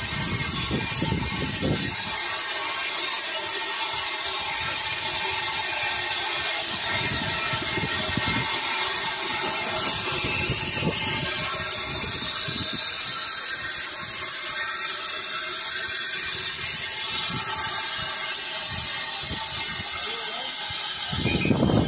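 Steam tank locomotive No. 7109 standing in steam, with a steady hiss of escaping steam. Low rumbles come in during the first two seconds and again near the end.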